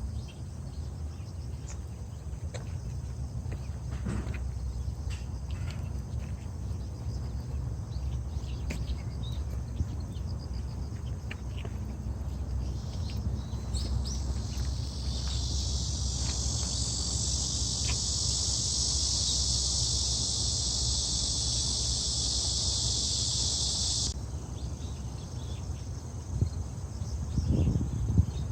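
Insects chirring in a high, steady chorus that swells about halfway through and cuts off suddenly near the end, over a low steady rumble of outdoor noise.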